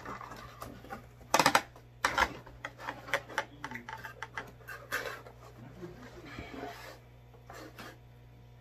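Cardboard pizza box being handled and folded shut: scraping and rubbing of cardboard, with a loud cluster of knocks about a second and a half in and scattered clicks after, dying down to faint rustling near the end.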